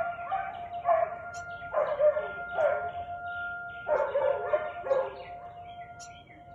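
Siberian husky barking repeatedly, about seven barks in the first five seconds, some sliding down in pitch, then a pause near the end. A steady high-pitched tone sounds underneath throughout.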